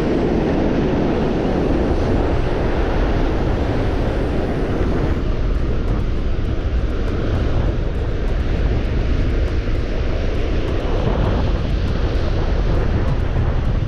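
Strong gusty wind buffeting the microphone in a loud, steady rumble.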